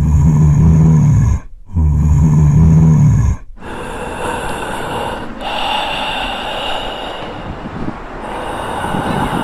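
Zombie puppet's voice: two long, low groans, then a raspy, breathy snarl.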